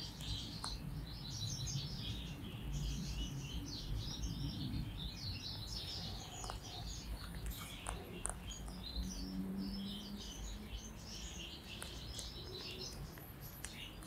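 Goldfinch mule (goldfinch × canary hybrid) singing a fast, unbroken twittering song.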